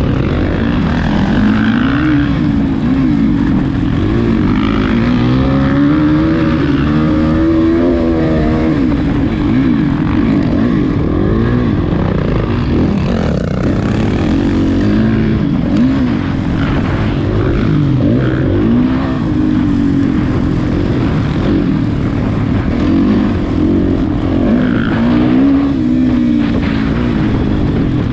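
Off-road motorcycle engine revving up and down repeatedly while racing, pitch rising and falling every second or two over steady rushing noise.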